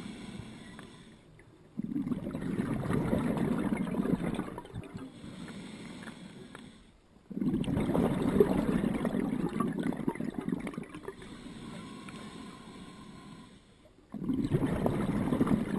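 Scuba diver's exhaled bubbles from the regulator, heard underwater: three breaths about six seconds apart, each a burst of bubbling that starts suddenly and dies away over a few seconds.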